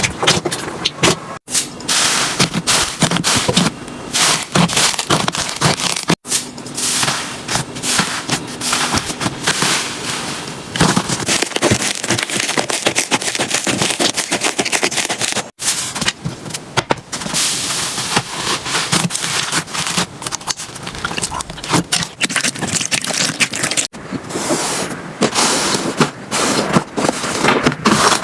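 Slime being squeezed, poked and stretched by hand close to the microphone: a dense run of small crackles, pops and squelching clicks. The sound breaks off abruptly a few times and resumes with a somewhat different texture.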